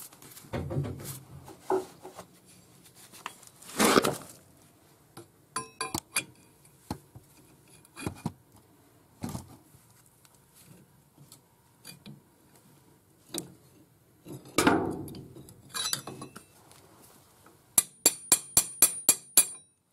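Steel wrecking bar levering a stubborn collar along a VW Beetle swing axle shaft: scattered metal knocks, scrapes and clinks, then a quick run of about eight sharp metallic clicks near the end.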